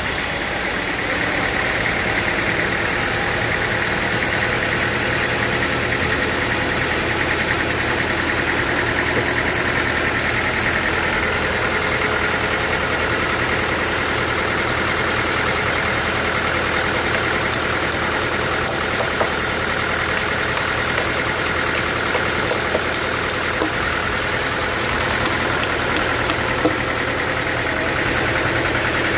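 Sawmill engine running steadily with a dense, even whine, with a few small clicks or knocks here and there.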